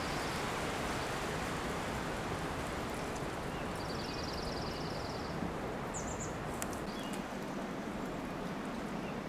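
Wind rushing steadily through Monterey pines, a continuous hiss of moving needles and boughs. A high, rapid bird trill rises over it about four seconds in, followed by a brief chirp.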